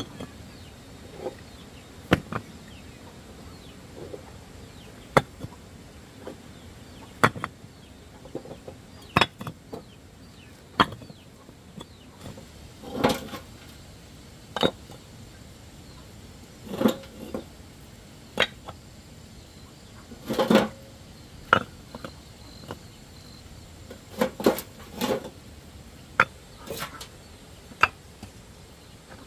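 Chickens clucking in short, scattered calls, mixed with irregular sharp knocks and clicks.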